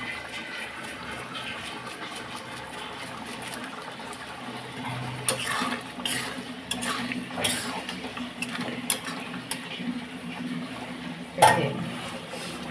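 Spatula stirring a simmering potato and paneer curry in a metal kadhai, scraping and clicking against the pan in irregular strokes from about five seconds in, with one louder knock near the end.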